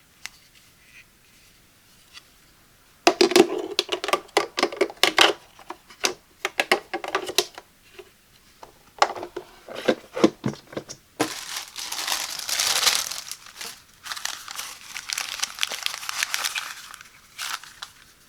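Crinkly unboxing packaging being crumpled and handled: a quick run of sharp crackles begins about three seconds in, then gives way to a longer continuous rustle.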